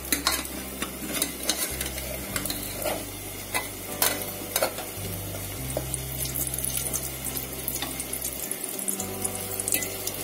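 Litti dough balls sizzling in a pressure cooker while a steel ladle turns them over, with repeated short clinks and scrapes of the ladle against the cooker's metal side and base.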